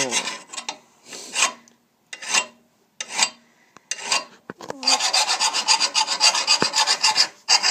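Hand file rasping across the steel edge of a Lawn-Boy mower blade to sharpen it. Single strokes come about a second apart, then from about five seconds in a fast run of short, quick strokes.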